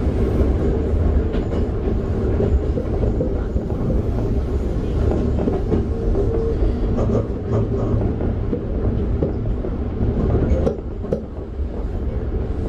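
Toei 5300 series electric train with Mitsubishi GTO-VVVF drive, heard from inside the car while running at speed: a steady low rumble of wheels on rail with a few sharp rail-joint clicks. The rumble drops a little near the end.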